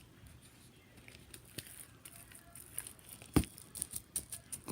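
Homemade slime being poked and handled, with wrappers pressed into it: faint crinkling at first, then a few sharp clicks and pops in the last second and a half, one louder than the rest.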